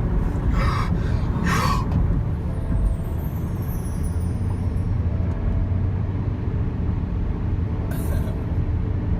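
Steady low road and engine rumble inside a moving car, with a few short hisses, one pair about a second in and one near the end.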